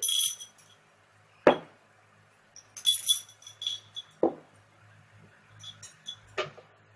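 Glass Ramune bottle with its marble clinking and rattling in short, ringing bursts, three times, with three dull knocks in between.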